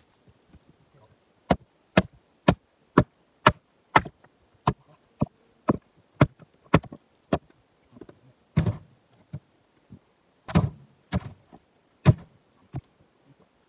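Knocks and thuds on freshly cut jarrah rounds: a run of sharp, evenly spaced knocks, about two a second, then a few heavier, lower thuds.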